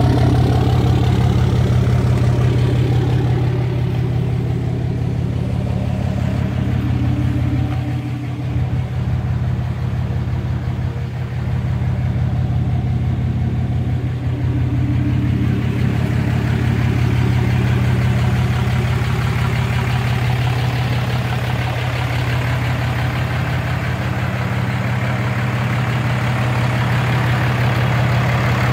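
Cummins 6.7 turbo-diesel idling steadily through a straight 5-inch exhaust with no muffler: a loud, even low rumble.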